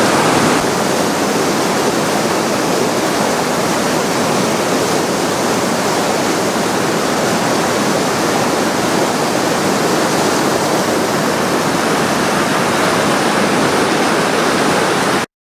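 Steady roar of a large whitewater rapid, the river's heavy waves churning and crashing. It cuts off abruptly near the end.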